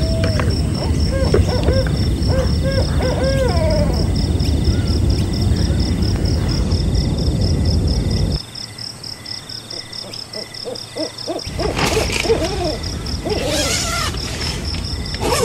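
Outdoor ambience with a bird calling repeatedly in short arching calls, over a steady, evenly pulsing high tone. A loud low background noise cuts out abruptly just past halfway and comes back a few seconds later, as the bird calls resume.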